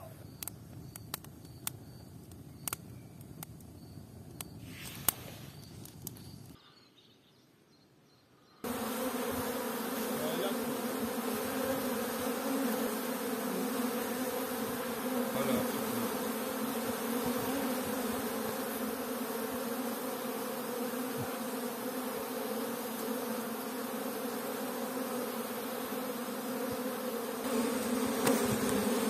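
A wood fire crackling with sharp pops, then, after a short gap, a dense swarm of honeybees buzzing at a wooden hive entrance: a steady, full hum that runs on from about nine seconds in.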